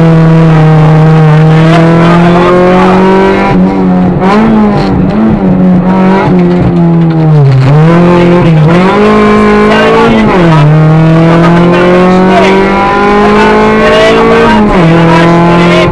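Nissan Sunny GTi's 2.0-litre four-cylinder engine heard from inside the cabin, driven hard on a rally stage: the revs climb slowly in long pulls and drop sharply several times, about four seconds in, twice around eight seconds, about ten seconds in and near the end.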